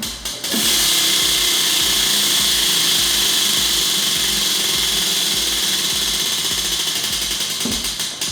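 A loud, steady whirring like a small electric motor, starting about half a second in and cutting off suddenly at the end, over background music with a steady beat.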